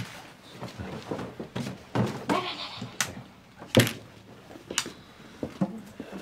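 Mahjong tiles clicking and clacking on a tabletop in irregular knocks during play. A bag rustles briefly about two and a half seconds in.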